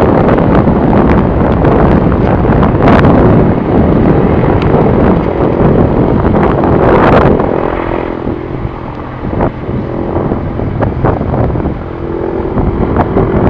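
Mil Mi-26T twin-turbine heavy helicopter flying away overhead: the rotor and turbine noise is mixed with heavy wind buffeting on the microphone. It drops somewhat in the second half and rises again near the end.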